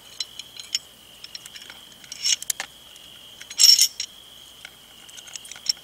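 Small metal clicks and rattles of Glock pistol parts being handled and fitted back together one-handed, with a louder rattle about three and a half seconds in. A steady high insect trill runs underneath.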